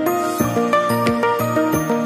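Electronic background music: a stepping synth melody over a deep kick beat about every two-thirds of a second, with no vocals in this stretch.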